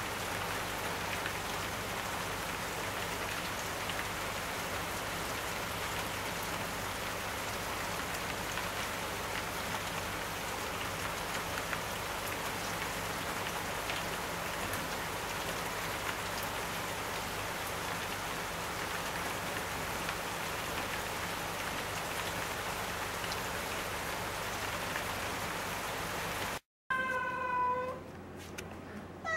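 Steady rain falling, pattering on a wet wooden deck. Near the end, after a brief dropout, a cat meows.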